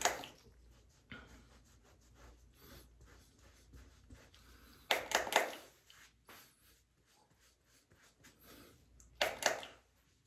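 A towel rubbing over a bare scalp as adhesive residue is wiped off: faint rubbing and rustling, with two louder swishes about five seconds in and near the end.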